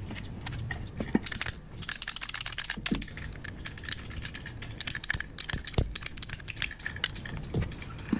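Rapid small clicks and rattles of hand tools and plumbing parts being worked, with a fast, even run of clicks about two seconds in.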